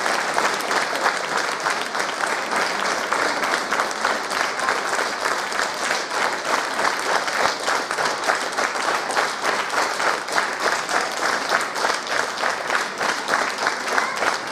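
Concert audience applauding, settling in the second half into rhythmic clapping in unison at about two and a half claps a second.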